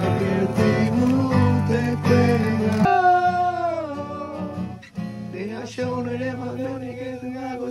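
Acoustic guitar strummed, with a voice singing along. About three seconds in the sound changes abruptly, and after that a voice sings a sliding, wavering melody over the guitar.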